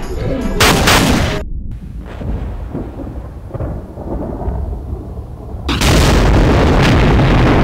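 Movie-style explosion sound effect: a loud blast that starts about three-quarters of the way through and keeps rumbling. Before it come a short burst of noise about a second in and a quieter stretch with faint cracks.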